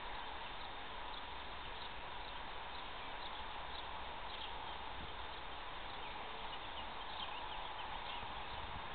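Steady outdoor background hiss with a low rumble, and faint short high chirps scattered throughout. The spinning staff makes no distinct whoosh or knock.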